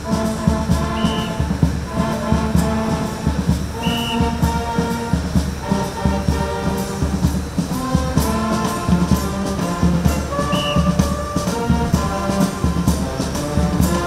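Brass band music with drums, sustained brass notes over a steady run of drum strikes. Three short high tones sound above it.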